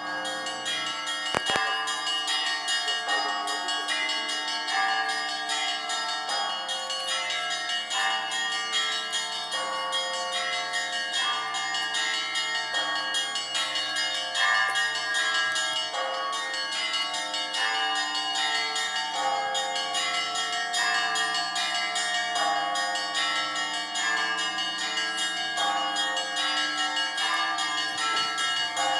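Russian church bells ringing a zvon: several bells of different pitches struck over and over in a continuous rhythmic peal, their tones overlapping and ringing on.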